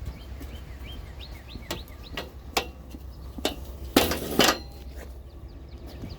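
A few sharp knocks and clinks of hard objects being handled, with a louder rattling clatter about four seconds in. Small birds are chirping.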